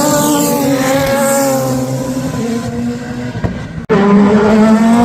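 Racing car engine at high revs, its pitch easing down and fading, then an abrupt cut about four seconds in to another race car engine rising in pitch.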